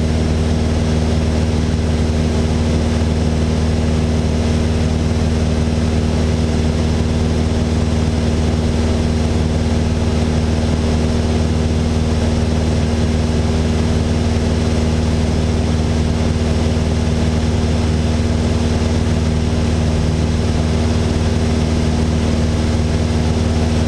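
Cabin sound of a Mooney M20J in flight: its four-cylinder Lycoming engine and propeller give a steady, unchanging drone over an even hiss of airflow.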